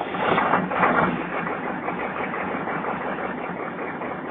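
1996 GMC 6.5-litre turbo-diesel V8 running just after a cold start, unplugged overnight in the cold, through a 3-inch straight pipe and heard from inside the cab. It is louder for about the first second, then settles into a steady idle with the lope tuned into it.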